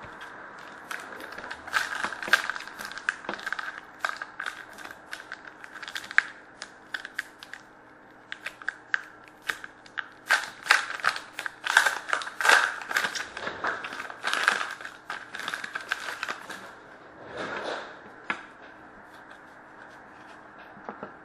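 Hockey-card pack wrapper being crinkled and torn open, then the cards handled: many sharp crackles and snaps in irregular clusters, busiest in the middle, over a faint steady hum.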